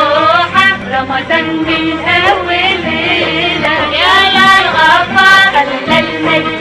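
An Arabic Ramadan song: voices singing a melody over instrumental accompaniment.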